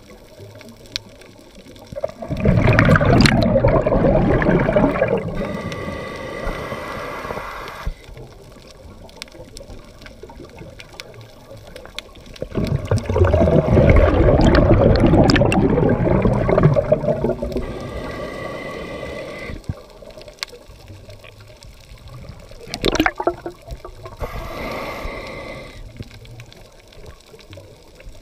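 Scuba diver's breathing through a regulator, heard underwater: two long rushes of bubbling exhaled air, a few seconds each, the first about two seconds in and the second about twelve seconds in, then shorter bursts near the end.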